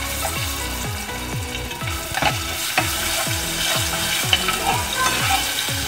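Garlic sizzling in hot fat in a non-stick pot while a spoon stirs and scrapes it, with occasional sharp clicks of the utensil on the pot. A low electronic beat thumps about twice a second underneath.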